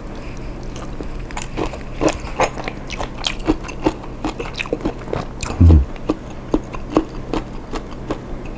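Close-miked chewing and biting of shrimp, with many quick wet smacking clicks. About five and a half seconds in there is a short low 'mm' of the voice, falling in pitch.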